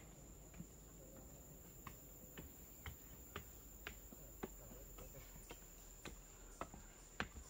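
Faint rainforest insect sound: a steady high-pitched drone, with soft ticks about twice a second.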